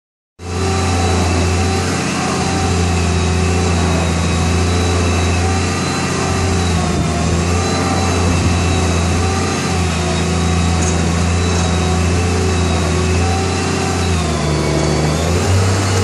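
Truck-mounted crane's engine running steadily, its note dipping briefly near the end.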